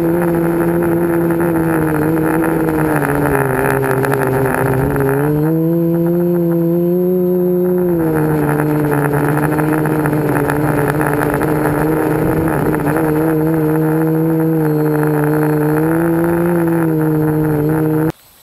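Electric motors and propellers of a KK-board quadcopter in flight, heard through its onboard camera: a loud, steady hum of several pitches together. The pitch rises about five seconds in, falls back about three seconds later, and the sound cuts off suddenly near the end.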